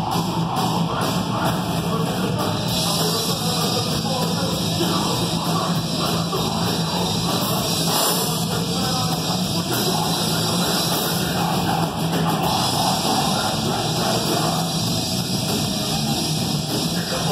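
Live heavy metal band playing at full volume: electric guitars and drum kit with a vocalist, heard from the audience.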